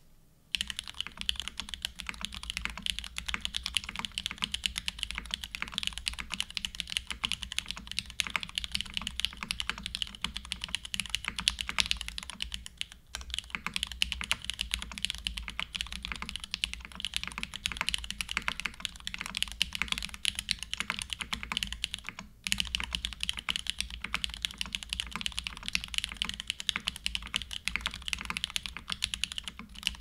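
Steady fast typing on a Geonworks Frog mechanical keyboard with lubed SP Star Nana linear switches in an aluminium plate and GMK keycaps: a dense stream of high-pitched keystroke clacks, starting about half a second in, with two brief pauses about 13 and 22 seconds in.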